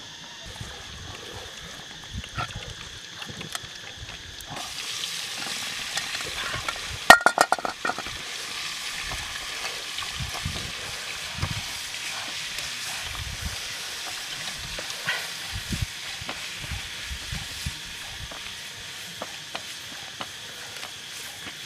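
Pieces of snake meat frying in a small wok over a wood fire, a steady sizzle that grows louder about four and a half seconds in, while it is stirred with a stick. About seven seconds in, a quick rattle of sharp knocks against the metal pan is the loudest sound.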